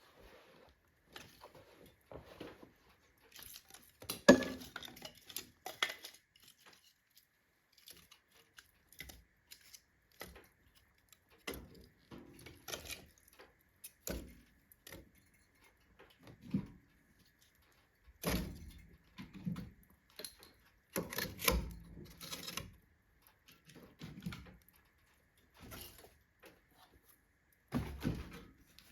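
Iron fireplace stove heating up fast on a kindling fire, with irregular metallic clicks, clanks and knocks, a few louder clusters among them: the stove's iron working as it expands with the heat.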